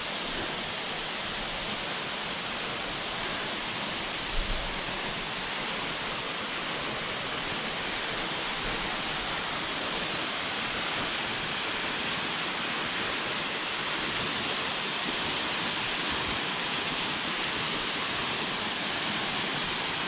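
Poundingmill Branch Falls, a waterfall sliding down a steep rock face, giving a steady, even rush of falling water, with one brief low thump about four seconds in.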